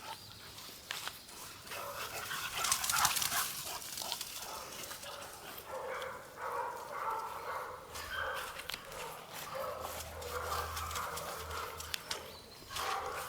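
Pit bull puppies playing, giving many short, high yips and whines, with scuffling clicks between them.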